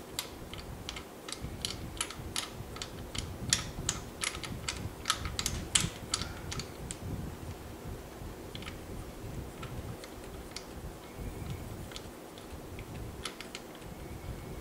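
Irregular light clicks and clinks of hands and tools working at the spark plugs and plug leads of a stopped Triumph Spitfire 1500 engine while the plugs are being removed. The clicks come thick and fast for the first half and then thin out, over a low steady background hum.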